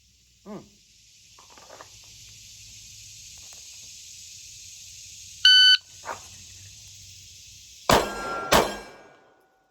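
A shot timer gives one beep, and about two and a half seconds later a Glock 45 9 mm pistol, drawn and fired one-handed, fires two shots about 0.7 s apart, each ringing briefly. A steady hiss runs underneath.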